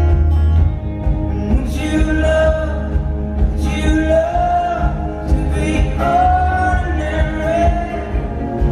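Live band music: a man sings long held phrases over strummed acoustic guitar and drums.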